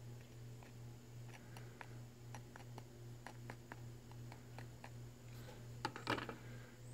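Faint small clicks and taps of an engine valve and a tube of lapping compound being handled as compound is dabbed onto the valve face, then a brief louder metal clack near the end as the valve goes into its seat in the cylinder head. A steady low hum runs underneath.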